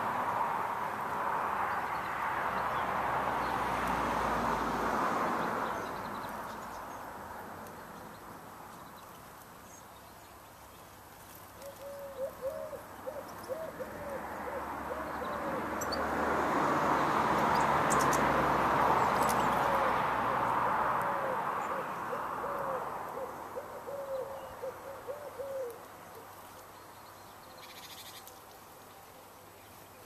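A pigeon cooing, a long run of short, repeated low coos starting about a third of the way in and stopping near the end. Behind it a broad rushing noise swells at the start, fades, and swells again in the middle.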